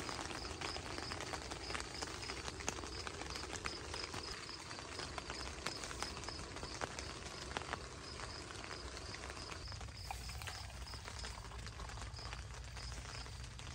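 Light rain pattering on the tent, with irregular drops ticking on the fabric.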